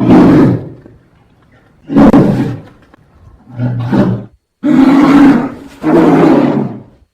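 Polar bear roaring: five loud, rough roars of about a second each, the last two coming almost back to back.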